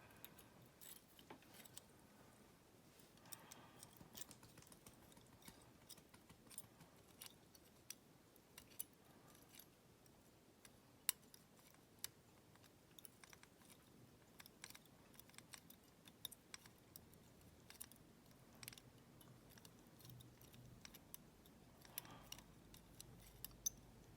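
Faint, scattered small metallic clicks of lever-lock picking tools working inside a five-lever padlock, as the levers are lifted and set. There is a sharper click about eleven seconds in and another near the end.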